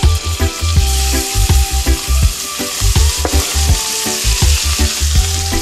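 Chopped yellow onion sizzling as it is scraped into a small pan of frying bacon and garlic and stirred with a knife; the sizzling grows stronger about a second in. Background music with a deep, steady bass beat plays under it.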